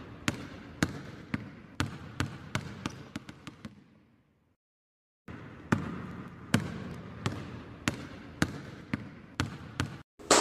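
A basketball bouncing on a hardwood court floor: sharp single bounces about one to two a second that quicken and die away, then after about a second of silence a second run of bounces.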